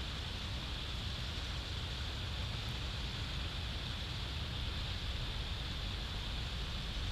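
Steady wind noise on an outdoor microphone: a low rumble under an even hiss, with no breaks.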